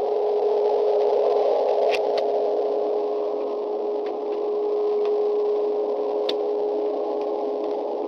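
A steady droning hum: one held mid-pitched tone over a band of rushing noise, unchanging throughout, with a couple of faint clicks.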